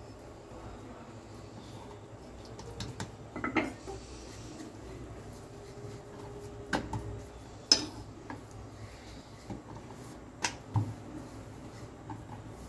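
Dough being rolled out with a wooden rolling pin on a wooden board: a handful of sharp wooden knocks and clicks, the loudest about eight seconds in, over a steady low hum.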